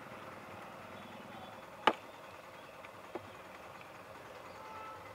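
Steady street background noise, with one sharp knock about two seconds in and a lighter knock about a second later, from a tin being tapped and set down on a wooden stall table.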